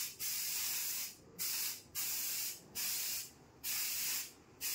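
An aerosol spray can sprayed in repeated short bursts: about six sharp hisses, each roughly half a second long, with brief gaps between them.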